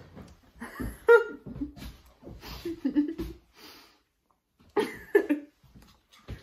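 Young women giggling and laughing breathily in short bursts, with a brief lull a little before the end.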